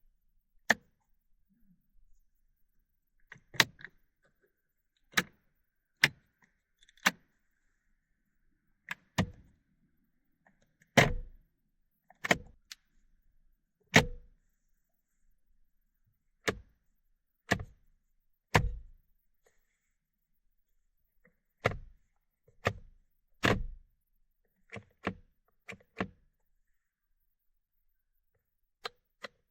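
Mechanical clicks and clunks of an early-2000s car's dashboard buttons and turn-signal lever being worked one at a time, about twenty of them, a second or two apart with silence between. Some are light clicks, and a few are heavier clunks with more thud.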